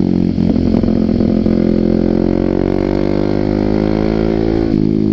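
Motorcycle engine running through a Muscov aftermarket exhaust while riding. Its note climbs steadily in pitch as the bike accelerates, then drops suddenly near the end.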